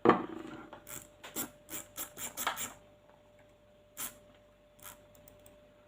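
Small screwdriver backing off a screw on a VSR-10-type airsoft hop-up unit: a sharp scrape at the start, a run of short scraping clicks for about two and a half seconds, then two single clicks.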